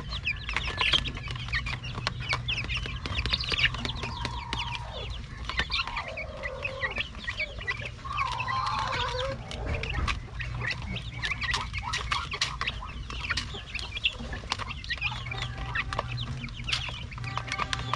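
A flock of young chickens chirping and calling while pecking feed from a plastic-bottle feeder, with many quick sharp taps of beaks on the feeder and wire floor. A steady low hum runs underneath.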